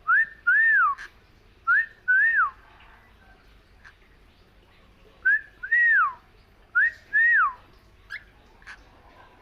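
Whistling: a two-note phrase, a short rising note followed by a longer note that swoops up and falls away, repeated four times in two pairs with a pause of about two and a half seconds between the pairs.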